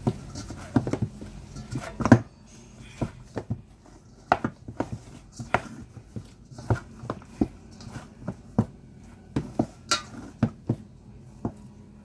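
Dough being kneaded by hand in a stainless steel mixing bowl: repeated irregular knocks and clanks of the metal bowl as the dough is pushed and folded, about one or two a second.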